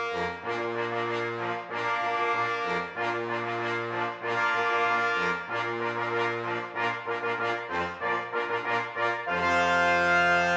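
Brass music, with trombones and trumpets playing a slow tune of held notes, ending on a long sustained chord near the end.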